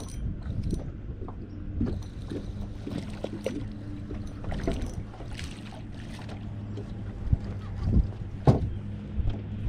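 Spinning reel being cranked and rod handling as a crappie is reeled in, with small clicks and ticks over a steady low hum from the boat's trolling motor. Two sharp knocks come about eight seconds in as the fish is swung aboard.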